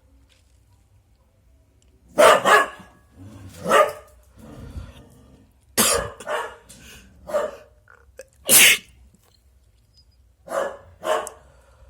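A pet dog barking, about ten loud barks in short groups, starting about two seconds in.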